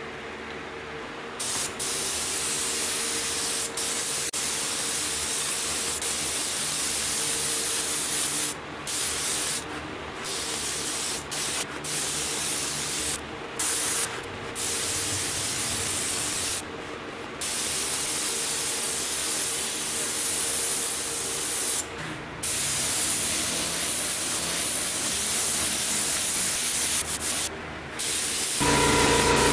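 Gravity-feed paint spray gun on a compressed-air line hissing as it sprays black base coat onto a motorcycle fuel tank, in passes broken by brief pauses where the trigger is let off.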